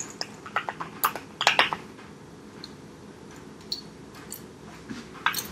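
Light clicks and taps of a plastic spice shaker and a metal utensil as onion powder is shaken out and measured. There is a quick run of small ticks in the first two seconds, then a few scattered ones.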